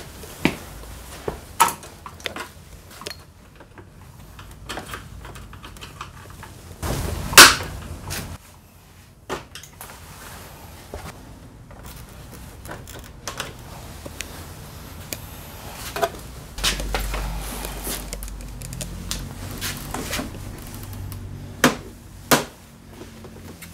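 Plastic body cowl panels of a Honda PCX 125 scooter being handled and clipped into place: scattered clicks, snaps and knocks of hard plastic, with one sharp, much louder knock about seven seconds in.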